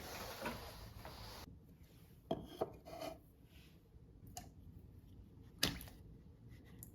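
Household handling sounds during kitchen cleaning: a steady hiss stops suddenly about one and a half seconds in, then a handful of light knocks and clicks of objects being moved and set down.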